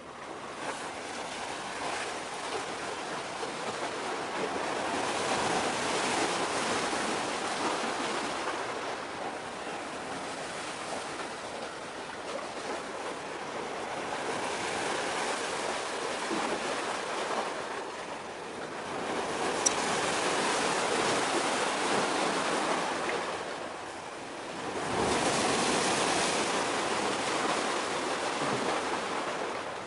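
Small waves washing in, a steady rush of water that swells and fades every several seconds. One brief click about two-thirds of the way through.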